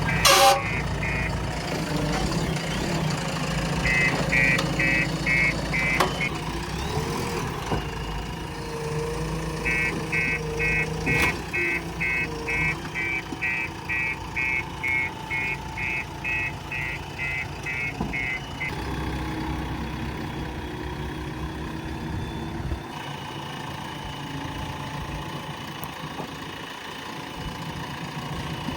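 Diesel engine of a JCB 3DX Plus backhoe loader running, with a reversing alarm beeping in runs, about two beeps a second, the longest run lasting about eight seconds. The engine rumble drops away near the end.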